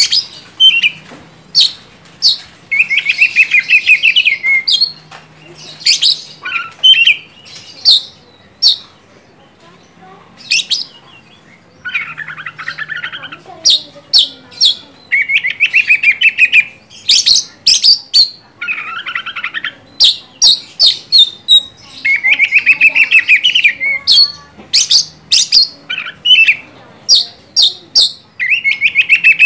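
Oriental magpie-robin in full, vigorous song: sharp whistled notes alternating with rapid buzzy rattling phrases of about a second each.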